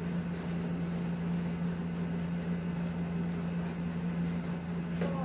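Steady low machine hum, one unchanging tone, with a faint hiss beneath it.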